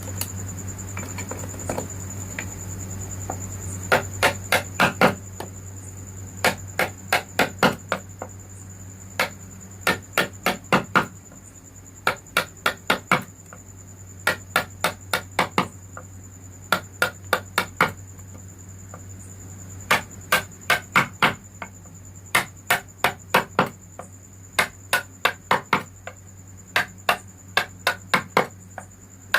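Wood carving chisel being struck with a hammer, in quick runs of four to six sharp taps repeated every second or two as the carver cuts into the wood.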